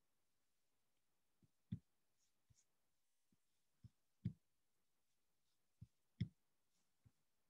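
Faint, sparse clicks and soft thumps from a computer being worked by hand, several coming in quick pairs, against near-silent room tone.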